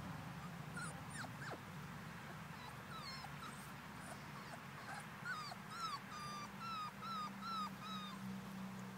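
Miniature American Shepherd puppy whimpering: short high-pitched cries, a few scattered at first, then a run of about eight in quick succession in the second half, roughly two a second.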